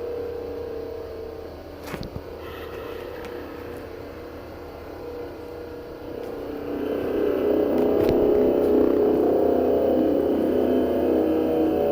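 An unexplained 'strange sound' of the kind reported heard in the sky: a low, horn-like drone made of several steady tones, which swells louder about seven seconds in.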